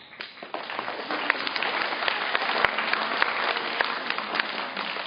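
An audience of children applauding: many hands clapping together, building up over the first second and dying away near the end.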